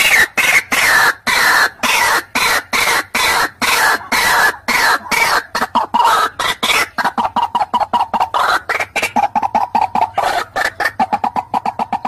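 White-breasted waterhen calling: a fast series of harsh repeated notes, about five a second, that speeds up about halfway into a quicker, steadier chatter.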